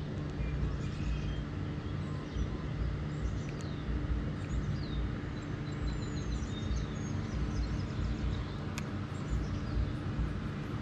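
Birds chirping in short, falling notes over a steady low hum and rumble. One sharp click comes near the end.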